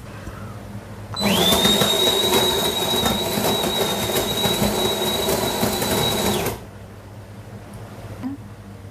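De'Longhi bean-to-cup coffee machine starting an espresso macchiato, running for about five seconds with a loud steady high whine over hiss and rattle, then cutting off abruptly.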